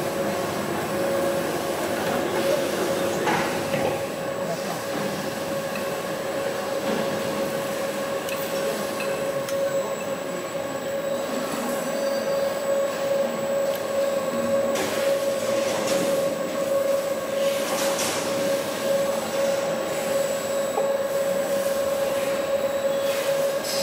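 Automatic flange welding machine arc-welding the fillet joint of a slip-on flange on a ductile iron pipe: a steady, noisy welding arc with a constant hum under it.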